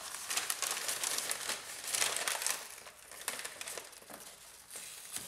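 Newspaper masking being pulled off and crumpled by hand: dense crinkling and rustling of paper, loudest in the first half and thinning out towards the end.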